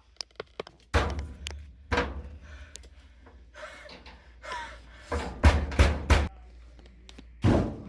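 A series of knocks and thumps with light clicks between them: single hits about one and two seconds in, a quick run of four around five to six seconds in, and one more near the end.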